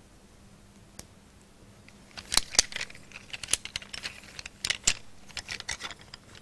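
Coloured pencils clicking and clacking against one another as one is picked out of the set. After a quiet start with a single click, a run of irregular sharp clicks begins about two seconds in.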